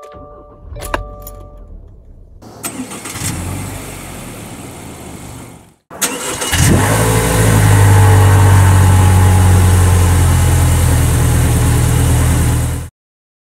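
Subaru Forester's flat-four engine starting up: dashboard chimes fade, a click sounds about a second in, then the engine catches. After a short break the engine runs loud and steady, heard close to the exhaust, and cuts off abruptly near the end.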